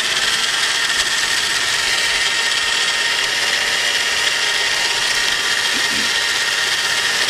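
Small electric blender's grinder jar running steadily at full speed with a constant high motor whine, grinding soaked whole red chillies, garlic paste, spices, oil and vinegar into a thick marinade paste.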